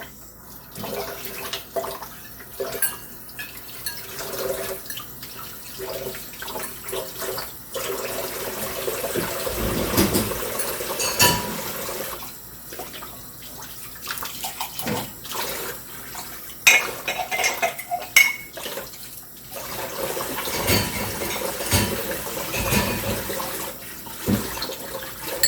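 Kitchen tap running as dirty dishes are rinsed under it before going into a dishwasher, with dishes and cutlery clinking against each other and the sink again and again.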